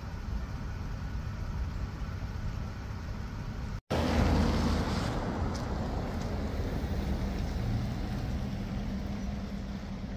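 Steady low outdoor rumble with a vehicle engine running. It breaks off abruptly about four seconds in and comes back louder, with a faint steady hum.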